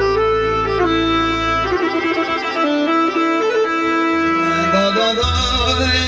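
Korg electronic keyboard playing a folk melody in an accordion-like voice over a low bass line. The bass drops out for about two seconds midway, then comes back.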